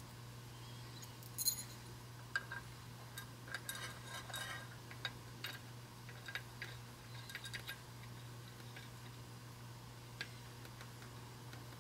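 Faint, small metallic clicks and clinks of hands working on the brush end of a 12-volt tractor starter motor, scattered over several seconds, over a steady low hum.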